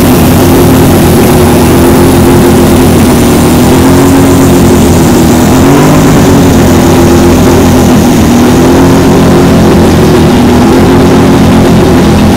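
Turbocharged 20B three-rotor rotary engine in a Mazda RX-2 running loudly at a steady idle after a dyno pull, its pitch wavering slightly. A thin high whine falls steadily in pitch over the first five seconds.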